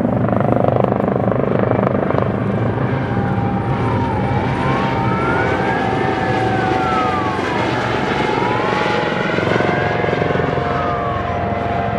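Airbus AS365N3 Dauphin twin-turbine helicopter flying nearby, its rotor and engines running steadily. From about three seconds in, a wailing siren rises and falls slowly over it.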